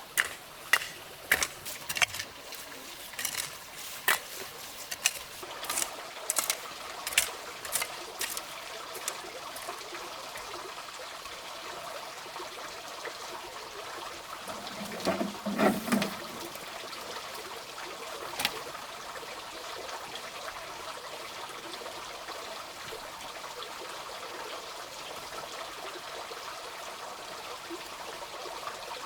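Sharp knocks, one or two a second, stopping about nine seconds in, over a steady sound of trickling water; a louder, duller rustle comes about halfway through.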